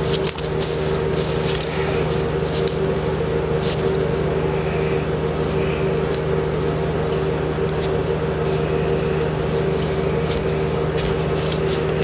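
Steady low machine hum, with scattered short clicks and rustles from hands fitting a leg band onto a downy raptor chick.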